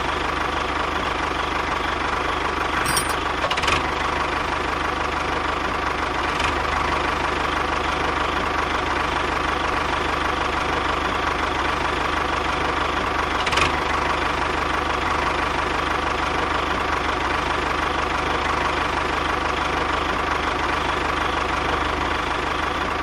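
Tractor engine idling steadily, with a few faint clicks.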